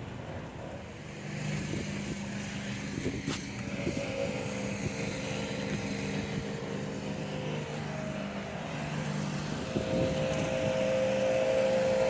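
A motor running with a steady hum, growing louder near the end.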